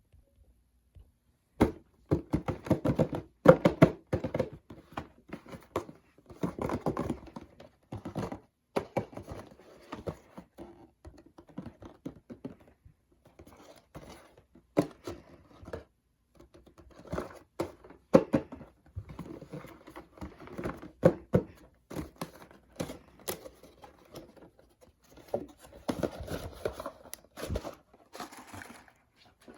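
Toy packaging being handled and opened: crinkling and tearing of wrapping, with irregular clicks and light thunks, starting a second and a half in.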